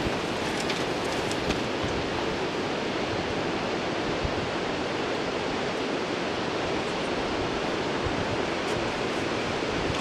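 Steady rushing outdoor noise, even throughout, with no distinct events standing out.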